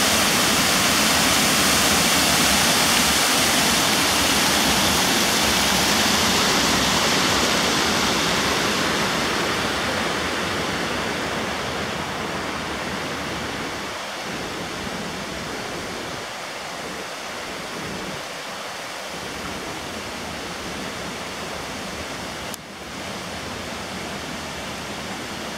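Mountain river rushing and cascading over small stone weirs, a steady rush of water that grows fainter after about ten seconds. A brief click comes near the end.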